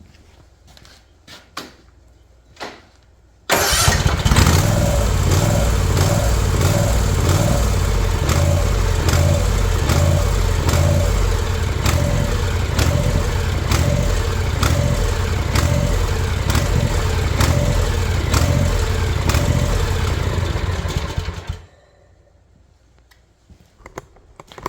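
Kawasaki FR691V V-twin engine on an Ariens Ikon zero-turn mower starting up about three and a half seconds in, running for about eighteen seconds with a regular pulsing rise and fall in its note, then shutting off abruptly. A few light clicks come before it starts and after it stops.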